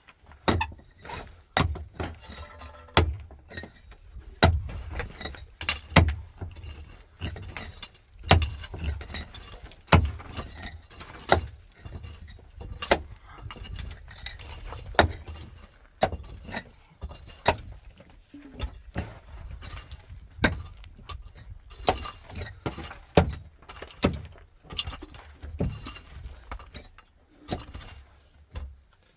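Irregular sharp clinks and knocks, one or two a second, of hard objects being handled and struck against each other.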